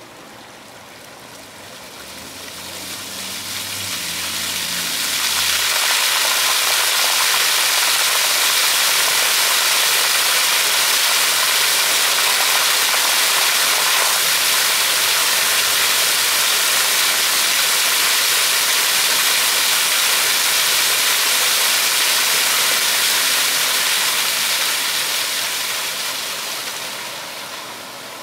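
Ground-level splash-pad fountain jets spraying water up and splashing onto the wet pavement, a steady rushing hiss. The spray builds over the first few seconds, runs evenly, then dies away near the end as the jets shut off.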